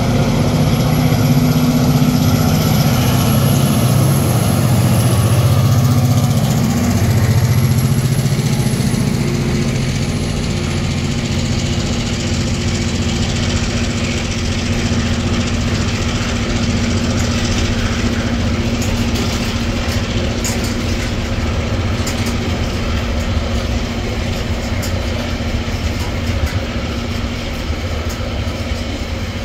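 EMD-powered diesel-electric locomotives of a heavy freight train passing close by as they work up a grade, with a deep engine drone and a high whine that fades after about ten seconds. Then the intermodal container wagons roll past, a steady rumble with scattered wheel clicks over the rails.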